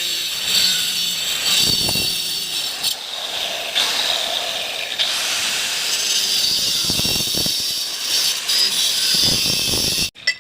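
A power tool cutting on a building site, running steadily with a high, hissing whine, then cutting off suddenly near the end.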